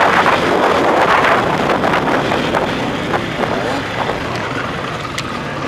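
Off-road enduro motorcycle engine running under the rider, mixed with heavy wind noise on the helmet camera's microphone. It is louder in the first couple of seconds and eases off a little after about three seconds.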